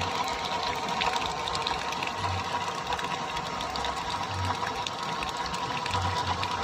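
Small electric motor (a reused dynamo) running a miniature water pump engine, with a steady whine and occasional low thuds.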